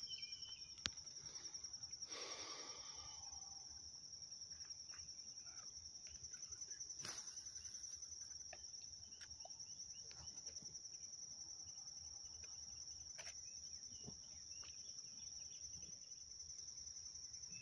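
Faint, steady high-pitched insect trilling, with a brief rustle about two seconds in and a few soft clicks of handling.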